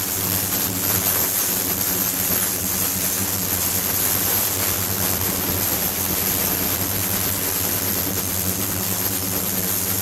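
Ultrasonic cleaning tank running with water flowing through it: a steady hum with an even hiss of moving water and a faint, constant high whine.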